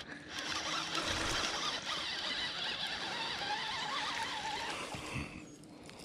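Baitcasting reel cranked steadily to bring in a hooked small bass, a continuous whirring that fades out near the end as the fish is landed.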